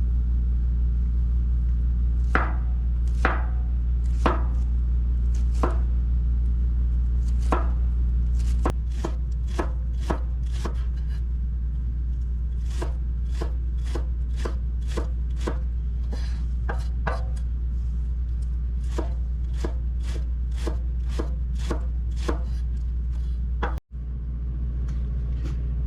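Kitchen knife chopping spring onions on a cutting board: a few separate cuts at first, then steady chopping at about two cuts a second from about nine seconds in, over a steady low hum.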